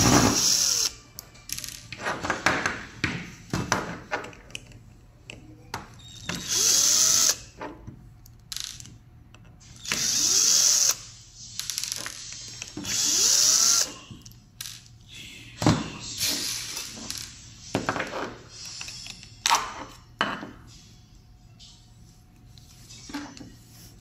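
Cordless drill-driver running in four short bursts, each winding up and down in pitch, as it backs out the screws of an aluminium scooter controller housing. Between the bursts come small clicks and knocks of screws and parts being handled on the desk.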